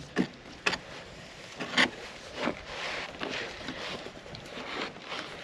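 Clicks and knocks from hand work, several sharp ones in the first couple of seconds, then a stretch of rough scraping noise, as polyurethane adhesive is applied and spread on the boat's hull planks.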